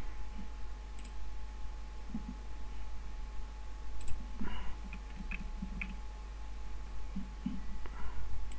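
Three sharp computer mouse clicks, a few seconds apart, over a faint steady electrical hum.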